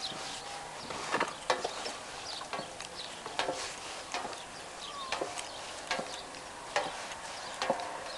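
Footsteps going down wooden stair treads, a sharp knock on each step, roughly one a second.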